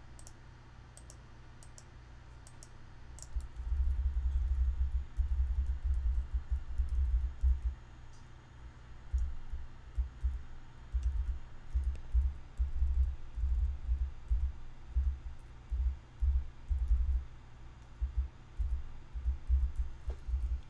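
Scattered computer mouse clicks and keyboard taps. From about three and a half seconds in, irregular bursts of low rumble, the loudest sound, come and go under the clicks, like bumps on the desk or microphone.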